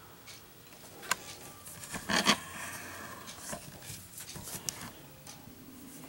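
Light handling noises: scattered clicks, taps and short rustles, with one brief louder rustle about two seconds in.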